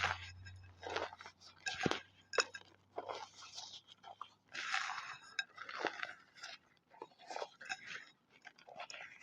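Chalk being crushed, a string of irregular crunches about one or two a second, over a low hum that stops about five seconds in.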